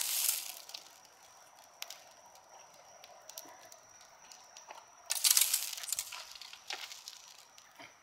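Charcoal ember poi being spun, giving scattered crackles and sparks, with a burst of crackling noise at the start as the ember basket sweeps low in a shower of sparks and another louder rush of crackling about five seconds in.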